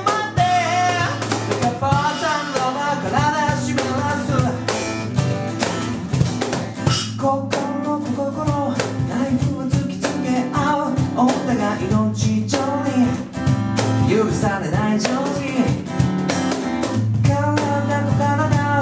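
Live acoustic band music: a strummed steel-string acoustic guitar and a male voice singing, with cajon percussion.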